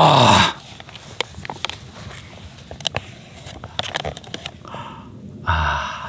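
A man's long, delighted 'ooh' that rises and falls in pitch, then soft crinkles and clicks of a plastic freeze-dried meal pouch being handled, with a short vocal sound near the end.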